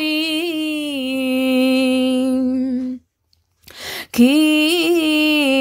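A woman chanting a Vietnamese Catholic Passion meditation (ngắm đứng) solo and unaccompanied. She holds one long note that steps down in pitch about a second in and breaks off at about three seconds. After a moment of silence comes an audible breath, and near the end she starts the next phrase.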